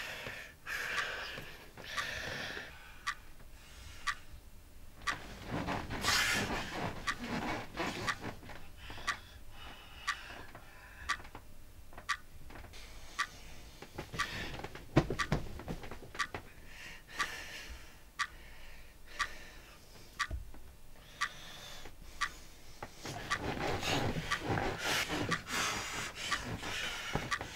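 A clock ticking steadily with evenly spaced ticks. A man breathes heavily and rustles the bedding as he tosses in bed, loudest near the start, around six seconds in and near the end.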